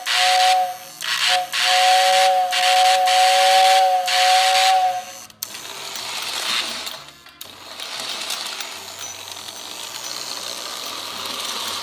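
Lionel toy train whistle blowing a two-note chord over a breathy hiss: a short blast, then a longer one of about four seconds that cuts off sharply. After it, a quieter steady mechanical running noise continues.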